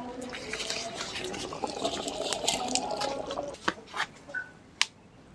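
Spicy coconut-milk sauce bubbling and popping as it simmers in a wok, for about three and a half seconds. After that come a few separate sharp clicks.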